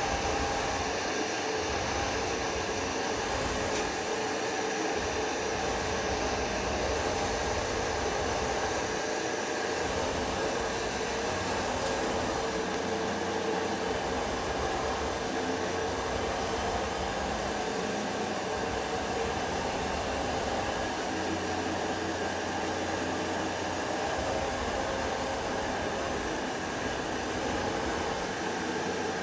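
Mixing machine running steadily, a continuous mechanical drone with a few steady tones under it, as it churns spawn through fermented waste-cotton substrate.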